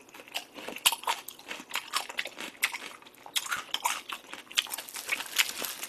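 Close-miked chewing of a piece of seokbakji radish kimchi: a quick, irregular run of wet crunches and mouth clicks.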